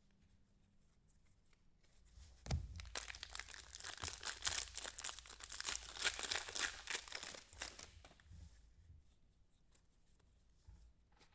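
A trading-card pack wrapper being torn open and crinkled by hand, a dense crackling rustle that starts about two seconds in and dies down near the end.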